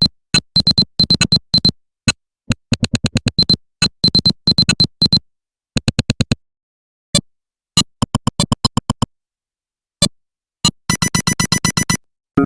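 Nothing Phone (1) Glyph ringtones: short, clipped synthesized blips in quick rhythmic runs, with dead silence between notes and phrases. The pattern changes partway through and grows into a dense rapid run of blips near the end.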